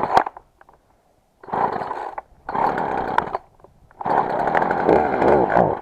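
Gas chainsaw being pull-started and firing only in short spurts: a brief burst at first, then three runs of about a second or less, the last close to two seconds, dying out between them. The saw is hard to start.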